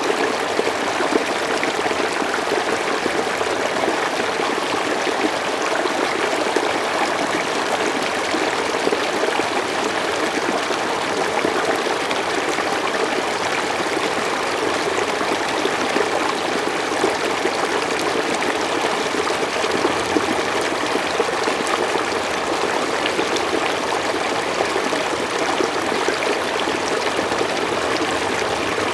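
Mountain stream flowing steadily over rocks: a continuous rushing babble with small splashes and trickles throughout.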